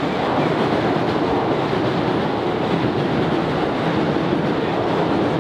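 Steady city street noise at a busy pedestrian crossing: the rumble of traffic and the hubbub of crowds, with no single sound standing out.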